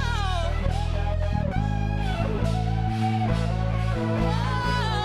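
Worship band music: an electric guitar plays a bending, sliding lead line over held bass notes.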